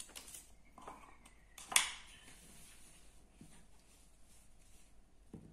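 Soft handling noises at a wooden table, with a single sharp knock a little under two seconds in.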